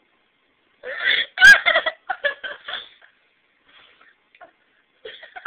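A woman's short, sharp hiccup-like burp about a second and a half in, amid about two seconds of short choppy giggling, then faint breathy sounds near the end.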